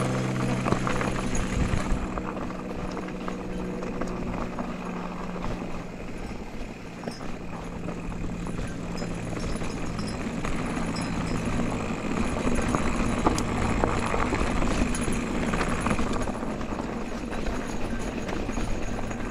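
Mountain bike rolling downhill on a rocky dirt trail: tyres crunching over loose gravel and stones, with the bike rattling and knocking over the bumps.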